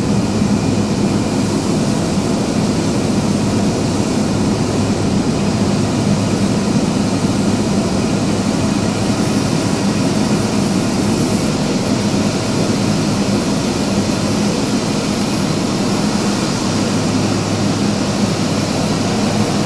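Cessna P210 Silver Eagle's Rolls-Royce 250 turboprop engine and propeller running steadily, heard inside the cockpit during the landing over the runway: a constant low hum under loud rushing air noise.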